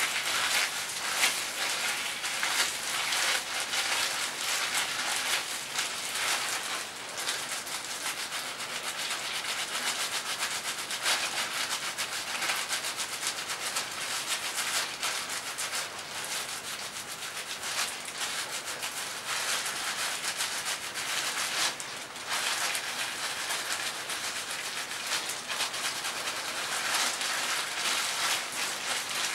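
Plastic-gloved hands massaging hair dye through wet, dye-soaked hair at the roots: a continuous wet rubbing close to the microphone, with a short lull about 22 seconds in.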